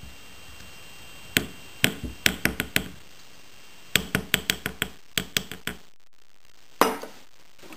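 Light hammer taps on a metal bench block, flattening the curve of wire earring hooks: a group of about six taps a second and a half in, a quicker run of about nine from four seconds in, and one sharp tap near the end.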